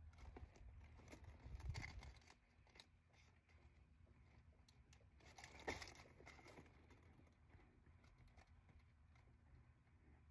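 Faint rustling and handling: a leather handbag and its cloth dust bag being moved about in a cardboard box, with two louder rustles about two seconds and six seconds in.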